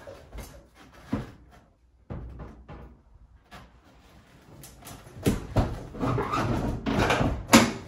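Metal housing of an over-the-range microwave bumping and scraping against the wall mounting plate and cabinets as it is lifted and tilted onto the plate's hooks. Scattered knocks at first, then a busier run of knocks and rubbing in the last few seconds, with the loudest knock near the end.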